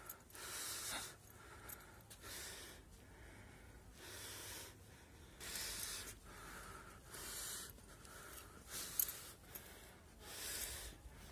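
A person breathing hard, a breath about every second and a half, while climbing a steep stone path.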